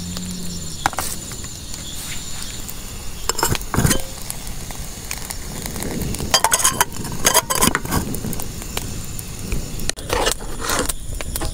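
Metal cooking utensils clinking and knocking against a pan, in a few scattered clusters of strikes.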